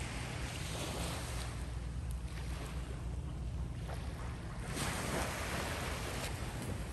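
Small waves washing onto a sandy shore, with wind rumbling on the microphone underneath; one wash swells louder about five seconds in.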